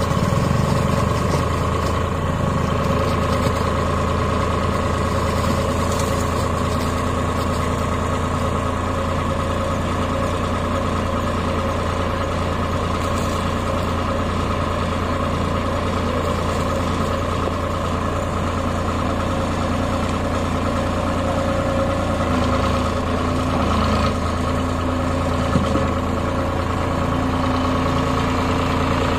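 Tractor diesel engine running steadily, holding an even speed with no revving.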